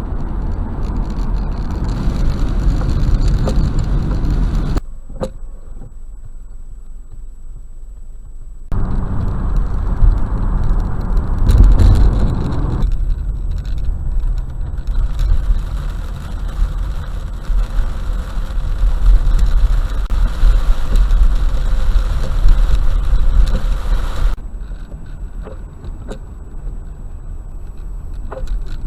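Car driving in rain, heard inside the cabin through a dashcam microphone: a steady rumble of road, tyre and engine noise. The level drops and jumps abruptly a few times where separate clips are cut together.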